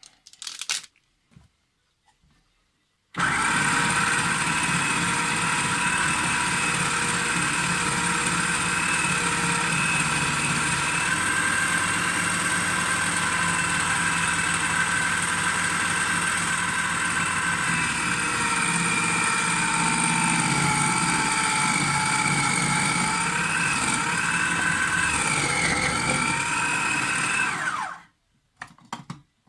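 Small electric food chopper running steadily for about 25 seconds as it chops celery, its high whine wavering and dipping in pitch shortly before the motor stops. A few light clicks come before it starts.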